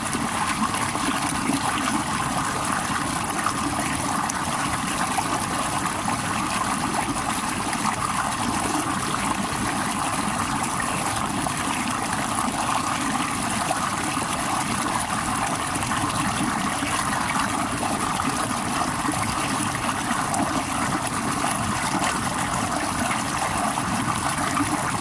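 Mountain stream water pouring over boulders in a small cascade, a steady splashing flow with no change in level.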